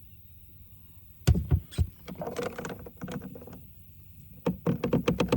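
Knocks and clatter from the plastic electrode and cell housing of a saltwater pool chlorinator being handled, with water sloshing around them. A few sharp knocks come about a second in, and a quick run of knocks and rattles comes near the end.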